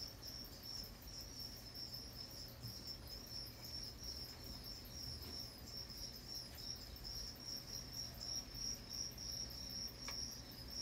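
A cricket chirping steadily in a fast, even pulse of high-pitched chirps, over a faint low hum.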